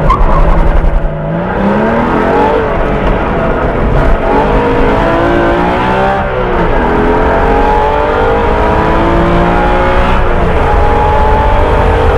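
Porsche 981 Cayman S's flat-six engine launching and accelerating hard. Its pitch climbs steeply over the first couple of seconds, then falls and climbs again several times as the car lifts, brakes and gets back on the throttle through the course, with a sharp drop about six and a half seconds in.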